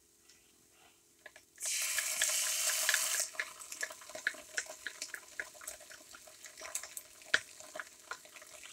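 Quartered carrots and mushrooms sautéing in a hot pot: a loud sizzle breaks out about a second and a half in and lasts about a second and a half, then settles into a steady crackle of small pops as tomato paste is spooned in.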